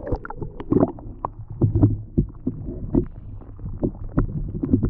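Underwater noise picked up by a camera submerged through an ice-fishing hole: bubbles gurgling and many irregular clicks and knocks over a rough low rumble.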